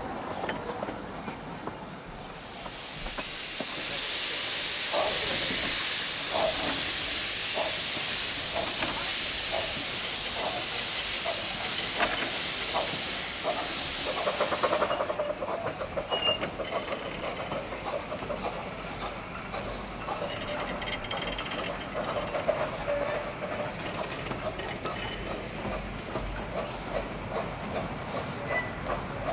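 15-inch gauge steam locomotive pulling its train away, steam hissing loudly from the cylinder drain cocks under quickening exhaust beats. The hiss cuts off about halfway through, leaving the beats and the coaches running over the rails.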